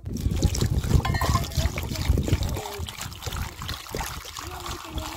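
Water poured onto cut pumpkin pieces in a plastic basin, splashing and trickling steadily.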